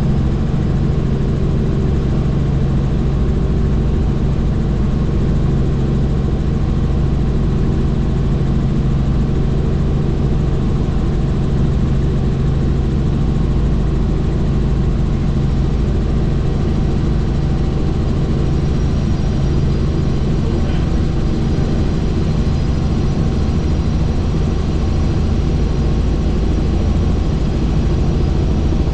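Helicopter in flight heard from on board: the steady, even drone of its turbine engine and rotor, with a strong low hum.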